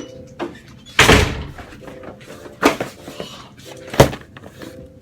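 Three sharp bangs about a second and a half apart, the first with a longer fading tail.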